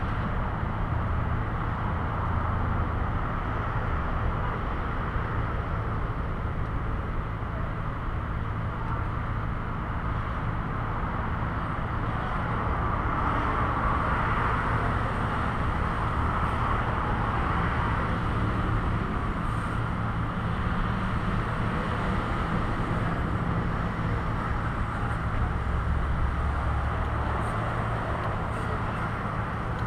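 Steady traffic and engine noise with a low hum throughout, swelling a little about halfway through.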